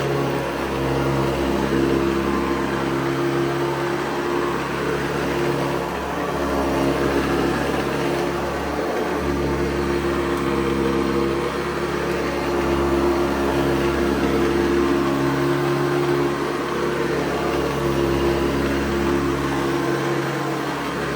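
1985 Hoover Convertible U4387 upright vacuum running, its 5-amp motor humming steadily while the beaterless brush roll spins on a badly worn, chewed-up belt. The level swells and dips a little. The motor sounds healthy, and the brush roll agitates well despite the belt.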